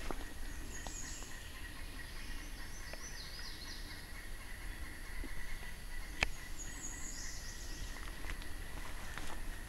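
Birds calling in woodland: three high, descending stepped phrases, about a second in, around three seconds and near seven seconds, over a faint steady high tone, with one sharp click about six seconds in.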